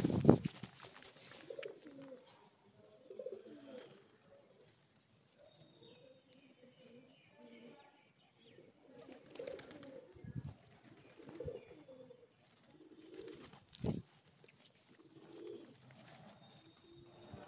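A flock of feral rock pigeons cooing over and over in low, repeated phrases. A loud flurry of wingbeats at the start, and one sharp clap later on.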